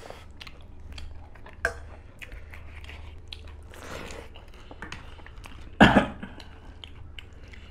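Two people eating with their hands close to the microphone: wet chewing and biting with many short crisp clicks, as of papad and spicy vegetable dishes being eaten. About six seconds in comes a single loud cough, the loudest sound.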